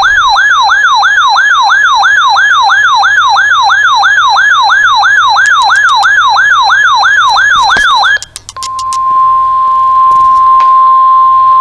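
An electronic yelp siren, a rapid rising sweep repeating about four times a second, cuts off about eight seconds in. After a few short clicks, a steady single alert tone near 1 kHz sounds: the NOAA Weather Radio warning alarm tone that comes before a broadcast warning.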